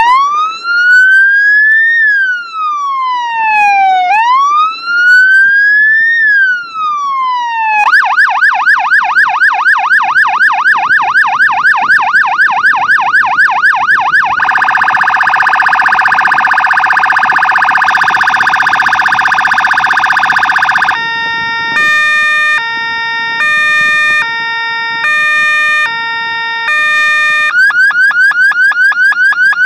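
Fire engine's electronic siren cycling through its tones. First come two slow wails, rising and falling every couple of seconds. About eight seconds in it switches to a fast yelp of about four sweeps a second, then to a steady harsh buzzing tone. That gives way to a hi-lo two-tone alternating about every 0.6 s, and near the end a fast warble.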